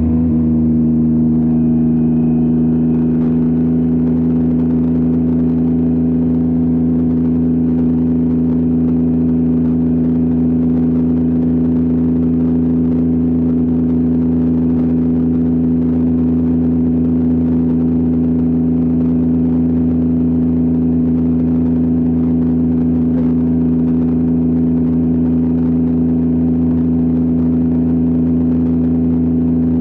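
Yamaha R9's inline-three engine and exhaust running steadily at one constant engine speed while the motorcycle cruises, the pitch holding level throughout.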